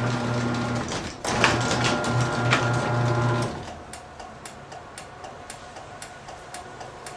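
Electric garage door opener's motor humming as it drives the door. It stops for a moment about a second in, starts again, then shuts off about three and a half seconds in. Faint regular clicking, about two a second, follows. This fits a door that will not close and reverses instead, which the owner suspects is down to the safety sensors.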